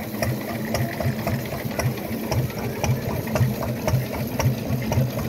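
Vintage bobbin braiding machine running, its carriers and gears clicking at a steady rhythm of about three a second, over the regular low thump of the old stationary engine that drives it.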